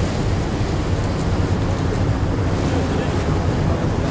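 Steady rush of wind on the microphone mixed with the wash of waves, heavy in the low end.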